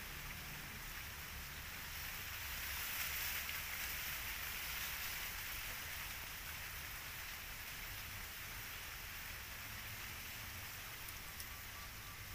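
Steady outdoor background noise: an even hiss that swells a little a few seconds in, over a low rumble.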